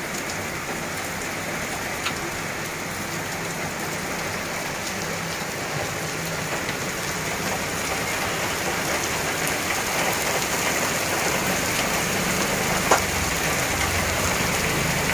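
Heavy rain pouring onto a flooded street: a steady, dense hiss of drops striking water and wet pavement that grows gradually louder, with a single sharp tick near the end.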